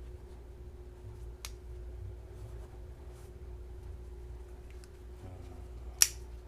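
Folding knives being handled over a steady low hum: a light click about one and a half seconds in, a few faint ticks, and a sharp, loud click near the end.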